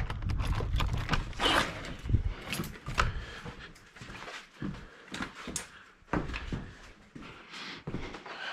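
Irregular knocks, clicks and rustling of someone walking while carrying and handling a camera, with a low rumble in the first couple of seconds.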